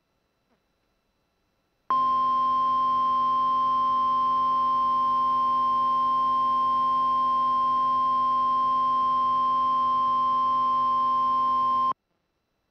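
NOAA Weather Radio warning alarm tone: one steady high-pitched tone that starts about two seconds in, holds for about ten seconds and cuts off sharply. It signals that an urgent warning bulletin, here a severe thunderstorm warning, is about to be read.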